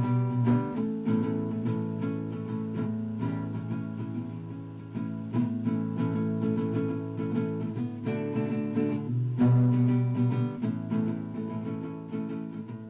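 Background music: an acoustic guitar strumming chords, easing down in level near the end.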